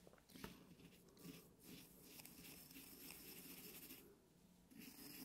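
Faint rustling hiss of granulated candle wax being poured and stirred in a small glass, with a light tap near the start. The granules shift unevenly, already half clumped together.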